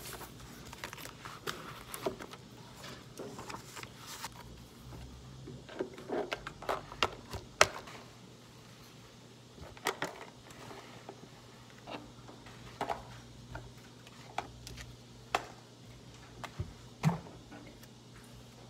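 Papers being gathered and a canvas tote bag being packed on a wooden desk: irregular paper rustling, soft handling noises and knocks, the loudest a sharp knock about halfway through, over a low steady hum.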